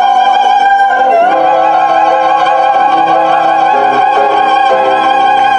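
Female vocal trio singing in an operatic, classical style, holding long notes with vibrato in close harmony. The chord shifts about a second in and again near the end.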